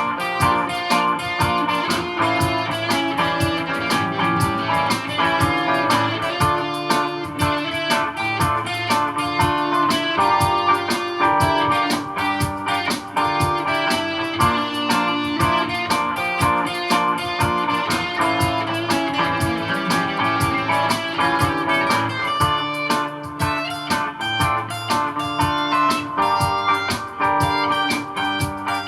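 Godin guitar played jazz-style through a looper: picked single notes and chords over looped guitar layers, running continuously.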